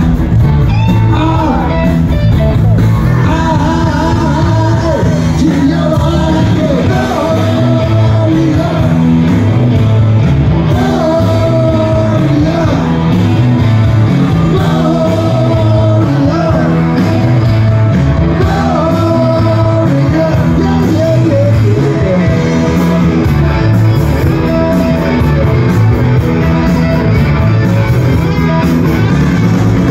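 Live rock band playing loudly through a stage PA: electric guitars, bass and drums keeping a steady beat, with a melodic line over the top.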